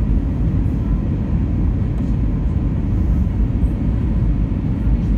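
Steady low rumble of engine and airflow noise inside the cabin of an Airbus A321 airliner on approach, with its flaps extended.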